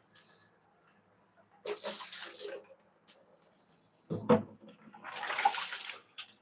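Two short rushes of water, each about a second long, with a sharp knock between them.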